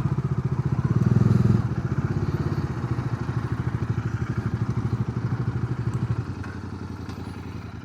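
Motorcycle engine running at low revs with a steady, even pulse. It drops in level about a second and a half in and again near the end as the bike slows.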